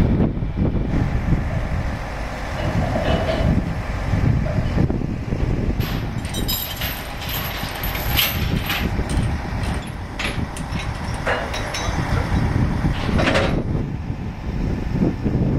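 Heavy steel rigging chain rattling and clanking against a steel trailer deck, with several separate metal clanks later on, over a steady low rumble of heavy vehicles.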